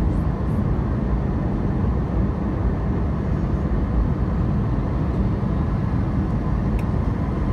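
Steady engine and airflow noise inside the cabin of an Airbus A320 airliner descending on approach to land, heaviest in the low end.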